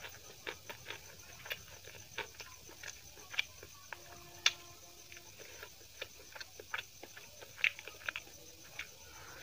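Close-miked eating sounds of chicken biryani eaten by hand: wet chewing and mouth smacks, with fingers working through the rice, heard as a scatter of short irregular clicks.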